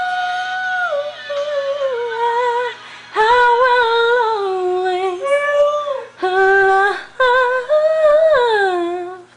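A young Siberian husky howling along with a person singing: long held, wavering notes that slide down in pitch, in several phrases with short breaks between them.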